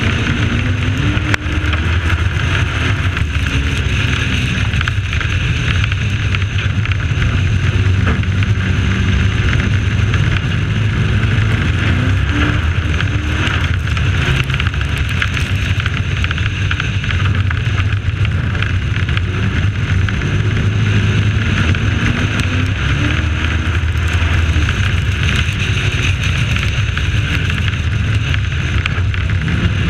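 Dirt-track race truck engine running at racing speed, heard onboard, its pitch dipping and climbing again every ten seconds or so through the turns, over a steady rush of wind and tyre noise.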